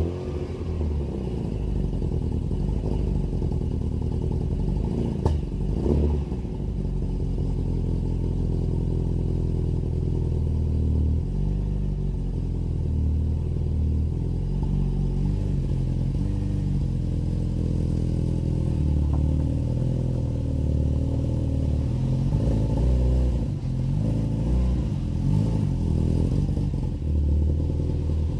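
A VW Golf GTI 16v's four-cylinder engine with Bosch K-Jetronic injection running, its pitch rising and falling a little. There are a couple of sharp knocks about five and six seconds in. The owner says the engine still has a misfire to be sorted out.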